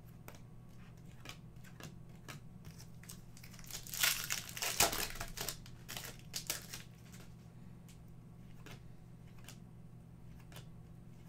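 Foil wrapper of an Upper Deck hockey card pack being torn open and crumpled: a burst of crinkling about four seconds in that lasts two to three seconds, with light clicks and rustles of cards being handled before and after.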